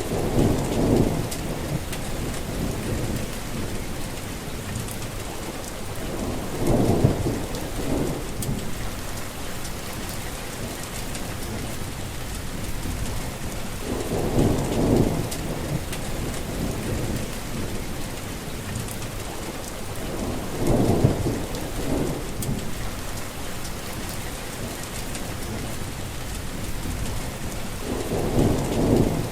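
Heavy rain falling steadily, with a low rumble of thunder swelling up about every seven seconds, five times in all.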